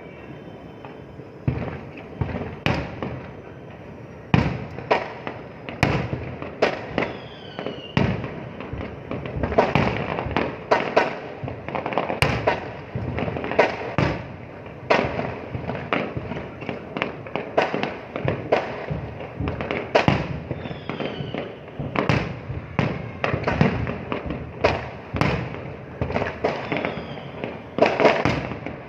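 Fireworks going off in a dense, irregular barrage: sharp bangs several times a second, each with an echoing tail, and now and then a faint falling whistle.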